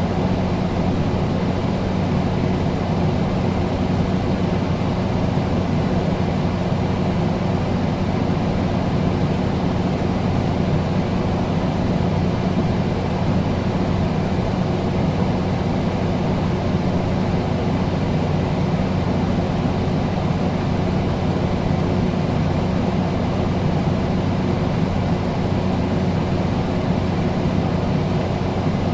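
Air conditioner running steadily: an even whir of moving air over a low, constant hum.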